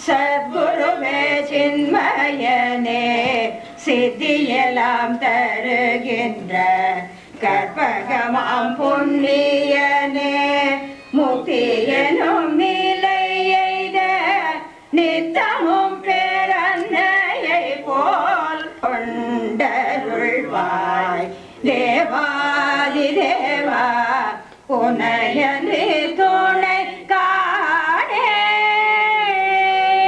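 Voices singing a slow song in long held notes, phrase after phrase with short pauses between, in an Indian classical style.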